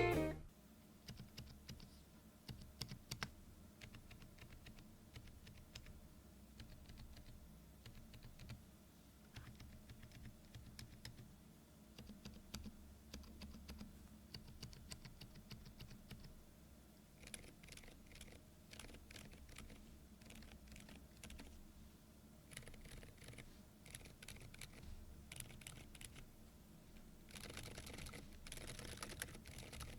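Typing on a Keychron V10 Pro Max Alice-layout mechanical keyboard fitted with Keychron K Pro silent tactile banana switches: soft, muted keystrokes. They come as faint scattered key presses, with quicker, brighter runs of typing about halfway through and near the end.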